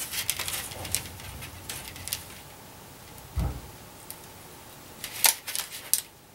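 Soldering a PL-259 coax connector with a soldering gun: scattered clicks and light crackling over a faint low hum that fades out about two seconds in, a dull thump in the middle, and a quick cluster of sharp clicks about five seconds in.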